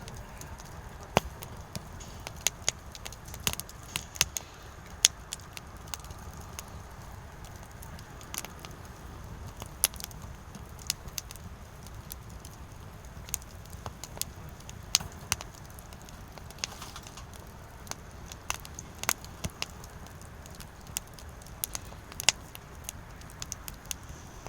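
Firewood burning and crackling, with sharp irregular pops, a few a second, some much louder than the rest, over a low steady rumble of the flames.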